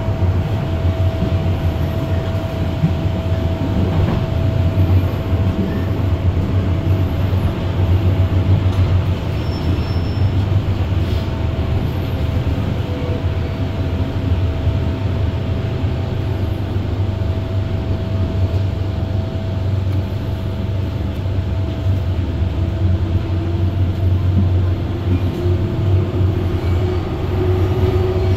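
MTR M-Train electric multiple unit running, heard from on board: a steady rumble of wheels on rail with a constant whine, and a second whine slowly rising in pitch near the end.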